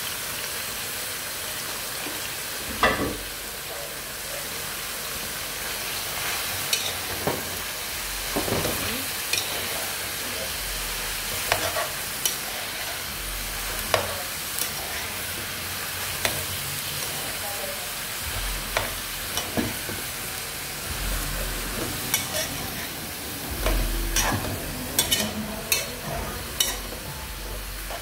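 Vegetables sizzling steadily in a metal pot on the stove while a metal spoon stirs shredded cabbage and carrots, scraping and knocking against the pot at irregular moments, with a flurry of knocks near the end.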